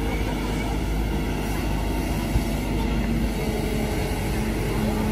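Kobelco SK200 excavator's diesel engine running steadily as the boom and bucket dig into ditch mud, with one short sharp knock about two seconds in.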